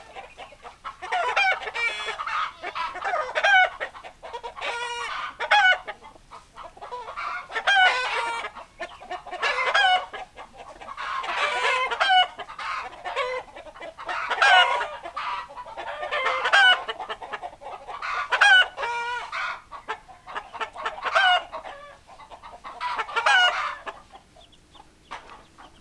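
Chickens clucking and crowing, with calls coming in repeated bursts about every two seconds.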